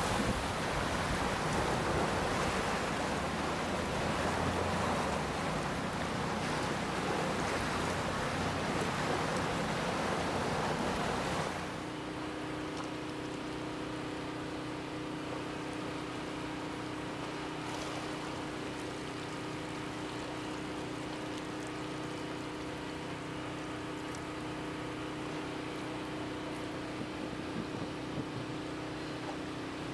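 Rushing floodwater from the swollen DuPage River pouring over a riverside walkway, with wind on the microphone. About twelve seconds in it cuts off abruptly to a quieter steady hum.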